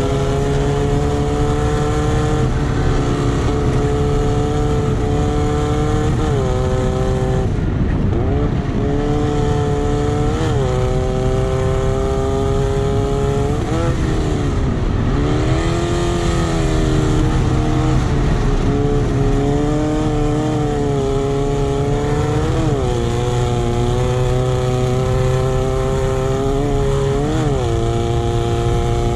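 Off-road race buggy engine at racing speed, recorded from on board beside the engine: its pitch climbs slowly and drops back briefly about six times, over steady wind and dirt-track rumble.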